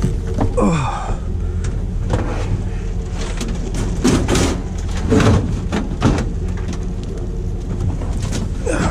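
Junk being shifted around in a pickup truck bed: several irregular knocks and scrapes of plastic and metal items being pushed aside, over a steady low hum.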